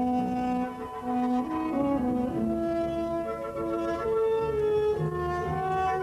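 Background music of bowed strings playing slow held notes that step from one pitch to the next, with low bass notes joining about halfway through.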